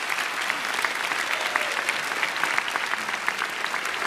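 Theatre audience applauding steadily: a dense patter of many hands clapping, welcoming a speaker to the stage.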